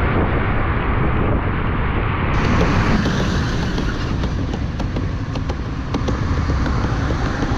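Motorcycle in slow town traffic: a steady low wind rumble on the microphone mixed with engine and traffic noise from a bus and cars close by. The sound turns brighter about two seconds in, with faint small ticks after that.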